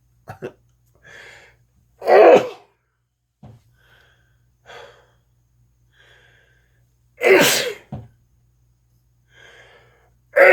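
A person sneezing loudly twice, about two seconds in and again about seven seconds in, with short gasping in-breaths between the sneezes. A third sneeze begins right at the end.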